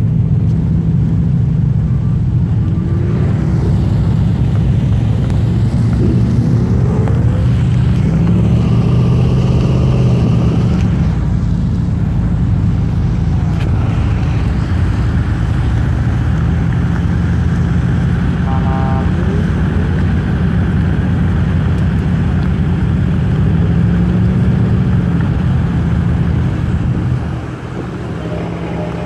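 Deep, loud car engine and exhaust note from cars driving slowly in convoy, with several short revs that rise and fall in pitch. The level drops a little near the end.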